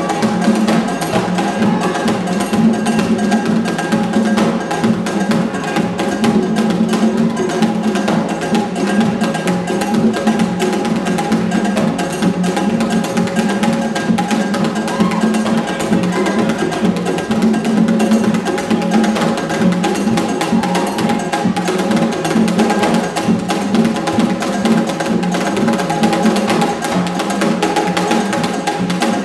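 Haitian drum ensemble playing a steady dance rhythm for Gede: drums under a fast, even clicking pattern that runs without a break.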